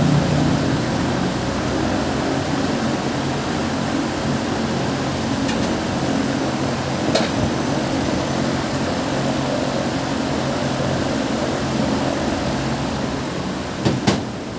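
Steady mechanical drone with a low hum, broken by a few light clicks and two quick knocks near the end.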